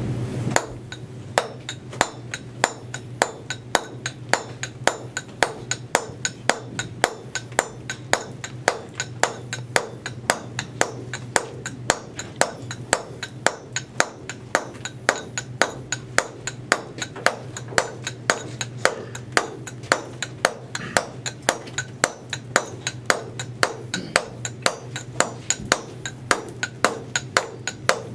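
Round-headed mallet striking a wide flat chisel into a stone block in a steady run of sharp blows, about two a second, cutting back a chamfer.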